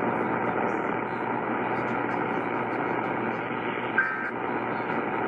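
Steady hiss and static of a distant AM radio station carrying no programme, with no voice. About four seconds in comes a short two-tone data burst, the first of the Emergency Alert System's end-of-message bursts that close the test.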